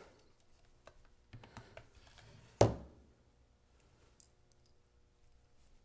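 Small clicks and handling noise as the clear solder collection tube is twisted and pulled out of an S-993A desoldering gun's barrel, with one sharper click about two and a half seconds in.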